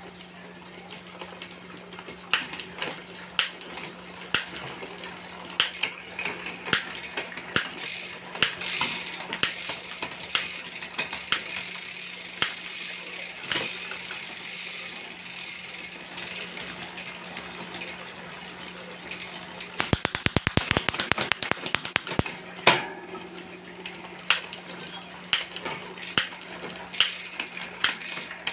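Bicycle drivetrain with an Ltwoo AX 13-speed rear derailleur: the chain runs over a spinning cassette as the derailleur shifts it from cog to cog, with sharp clicks scattered throughout and a rapid run of clicks about twenty seconds in.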